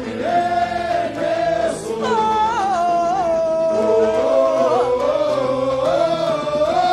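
Live samba-enredo singing: the lead singer and chorus hold long, drawn-out notes with vibrato over the band's accompaniment.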